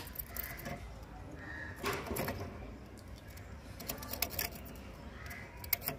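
Quiet workbench sounds: a few faint clicks and taps as a soldering iron and copper desoldering braid are worked against a circuit board's solder joints to free a transistor.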